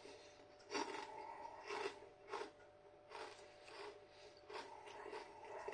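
A person chewing hand-cooked potato crisps with the mouth close to the microphone: soft, irregular crunches, roughly one every half second to a second.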